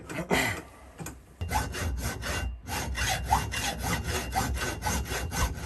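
Hand sawing: a saw cutting stock with quick, even back-and-forth strokes, about five a second, with a brief pause in the middle.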